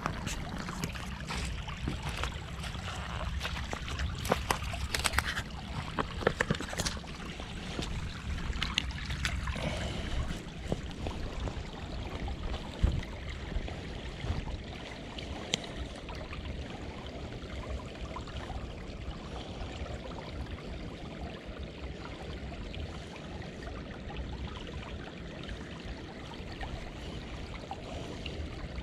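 Shallow stream running and trickling over rocks, with scattered short clicks and knocks in the first half.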